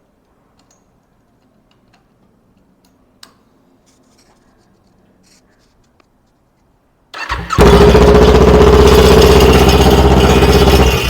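Kawasaki Ninja 400's parallel-twin engine started with no muffler fitted, open and unsilenced. After several quiet seconds it cranks about seven seconds in, catches at once and runs very loud and steady, then stops near the end.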